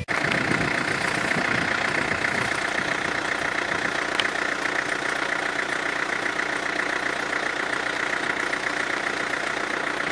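Off-road 4x4's engine running steadily, holding one even note with no revving.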